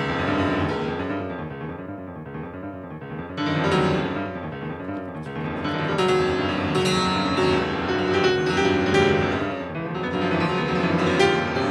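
Piano playing classical music, a continuous run of notes with several louder passages.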